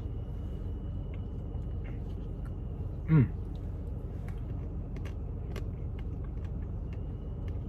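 Steady low rumble, like a running engine or fan, with faint clicks of a spoon and eating, and a short "mm" from the eater about three seconds in.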